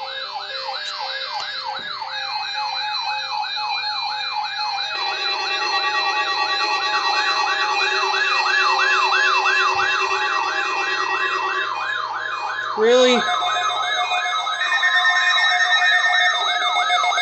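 Several weather radio receivers sounding their alert alarms at once, set off by a NOAA Weather Radio weekly test signal: layered, rapid up-and-down siren-like warbles, about three a second, over steady beeping tones. It grows louder, with more alarm tones joining about five seconds in.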